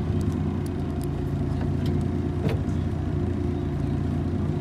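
Car engine idling steadily, an even low drone, with a single light click about halfway through.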